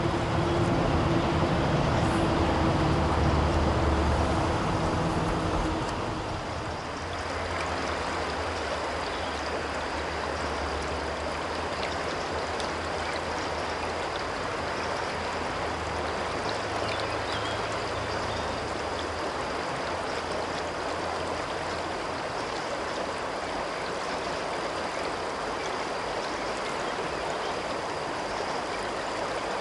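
River water rushing steadily over a shallow stretch. A low droning hum in the first six seconds fades away.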